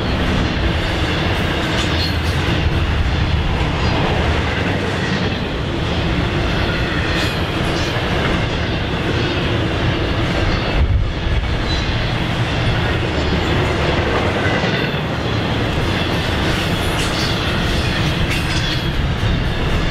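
Union Pacific intermodal freight train's container cars rolling past at speed: a steady, loud rumble of steel wheels on rail with scattered clicks over the rail joints.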